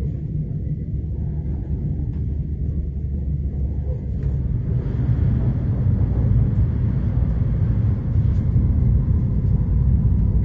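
Lastochka electric train running at speed, heard inside the passenger car: a steady, deep rumble of wheels on rail. From about four and a half seconds in, as the train goes onto a steel truss bridge, the rumble grows a little louder and a hiss joins it.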